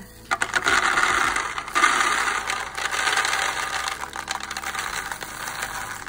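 Small pink seed beads poured from a glass jar into a disposable bowl: a dense rattling pour, loudest in the first couple of seconds and thinning out toward the end.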